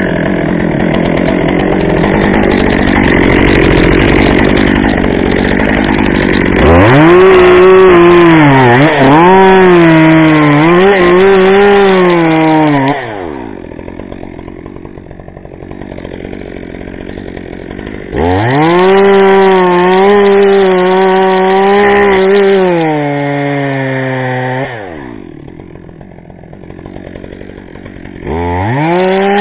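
Two-stroke chainsaw cutting wood: it runs at full throttle in three long bursts, its pitch dipping and wavering under load, and drops back to idle between them.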